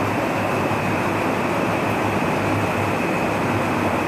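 Steady fan noise in a room: an even hiss over a low hum.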